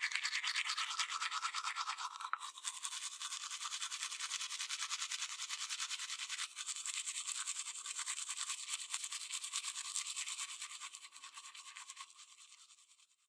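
Toothbrush sound effect: fast, steady back-and-forth scrubbing of teeth being brushed. It starts abruptly, breaks briefly twice, and fades out near the end.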